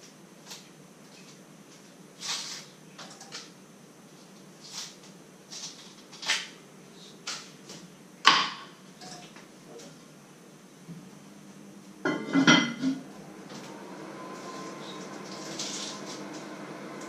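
Kitchen knife clicking and knocking on a wooden cutting board while potatoes are peeled and cut: scattered single taps, then a brief louder clatter about twelve seconds in. A steady hum comes in shortly before the clatter and grows a little louder toward the end.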